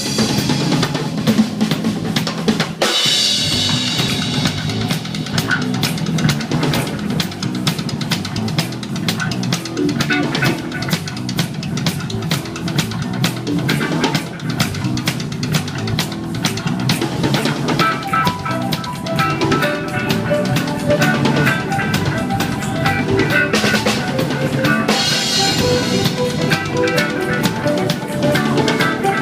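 Live reggae dub band playing, with the drum kit's bass drum, snare and rimshots up front over the bass. Pitched instrument lines fill in over the second half, and cymbal crashes ring out about three seconds in and again near the end.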